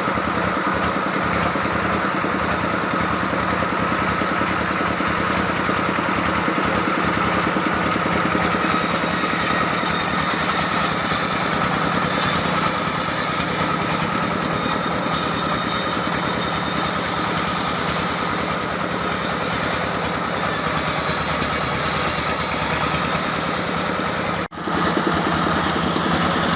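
Engine-powered sawmill running steadily, with a hiss that comes and goes in the high end from about nine seconds in; the sound drops out for an instant near the end.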